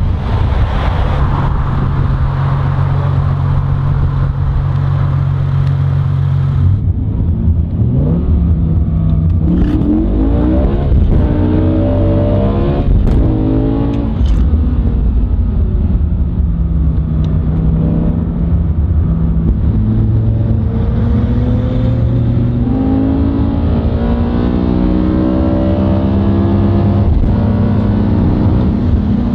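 BMW 1 Series Coupe engine and exhaust held at steady revs outside the car. About seven seconds in, the sound switches to inside the cabin under hard acceleration, the engine note climbing and dropping back at each of several upshifts, then rising more slowly at high speed.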